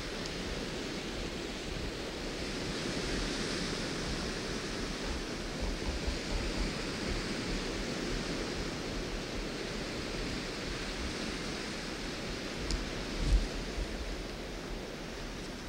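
Steady rushing outdoor noise with wind buffeting the camcorder microphone in low rumbles. A single low thump comes near the end.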